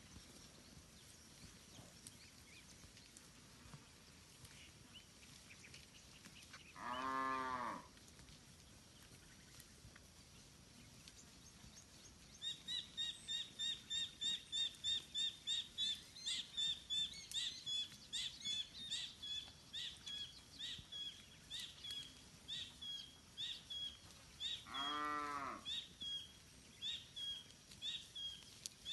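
Village cattle mooing twice, short pitched moos about a second long, one about seven seconds in and one near the end. From about the middle, a bird calls in a long series of short high notes, fast at first and then slowing.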